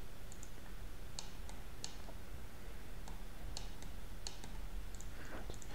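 Scattered single clicks of a computer mouse and keyboard, irregularly spaced over a steady low background hum.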